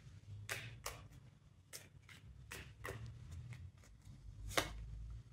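A deck of tarot cards shuffled by hand: about ten soft, irregularly spaced card slaps and clicks, the loudest near the end.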